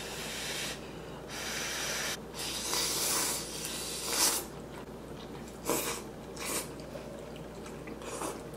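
A person slurping hot instant ramen noodles. There are several long slurps in the first few seconds, then a few short, sharp ones.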